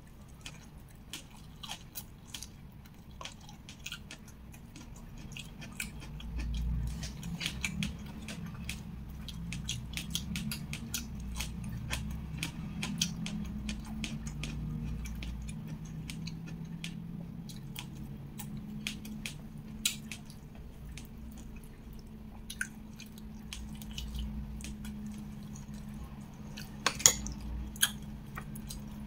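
Close-up chewing and wet mouth clicks of a person eating with their hands, starting on a mouthful of fern shoots, with many small sharp smacks throughout. A low steady hum runs under it from about six seconds in.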